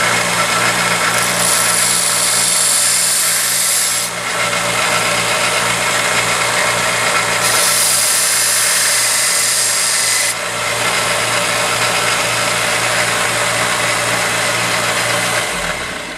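Grizzly 1x30 belt grinder running with a steady motor hum while a steel knife blade is pressed against the moving belt in two passes, each adding a loud grinding hiss. Near the end the grinder is switched off and the motor winds down.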